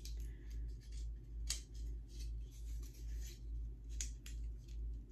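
Thin wooden picture-frame strips clicking and creaking as they are forced together at the joints, the wood splitting as it goes. A few sharp clicks, the strongest about a second and a half in and about four seconds in, over a low hum that pulses about twice a second.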